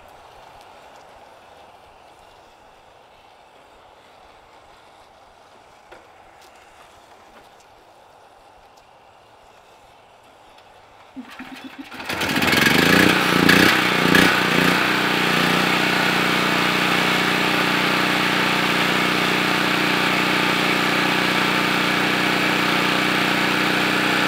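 Open-frame portable generator starting about twelve seconds in: its engine catches, surges unevenly for a couple of seconds, then settles into a steady, loud run. Before that only faint outdoor background.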